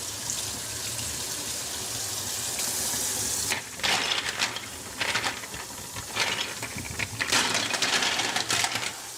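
Kitchen tap running hot water into the sink, then two bursts of hard clinking and clattering, ice cubes knocking together, about three and a half seconds in and again near the end.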